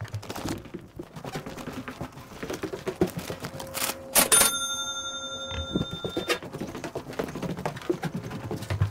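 Footsteps and knocks on stairs in a hard-walled stairwell. About four seconds in comes a cash-register "ka-ching" sound effect: a sharp hit and then a bell-like ring of several tones that fades over about two seconds.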